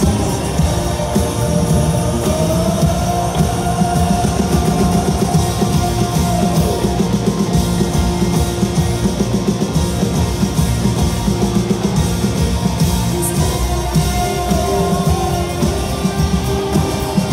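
Rock band playing live and loud, heard from the audience in a large hall: drums, bass and electric guitars with a held high melodic line over a steady driving beat.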